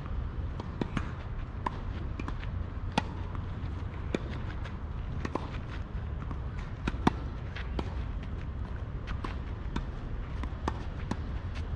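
Tennis rally on a clay court: a string of sharp pops from racket strings striking the ball and the ball bouncing, the loudest about three and seven seconds in, over a low steady rumble.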